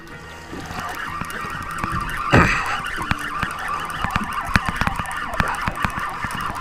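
Fishing reel whirring and clicking as a hooked fish is fought on a bent rod. A loud thump comes about two and a half seconds in.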